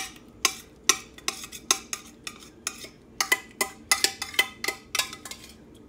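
A utensil scraping and knocking against the inside of an Instant Pot's stainless steel inner pot, scraping the last of the yogurt off the bottom. Short sharp strokes about two a second, coming faster and louder after about three seconds.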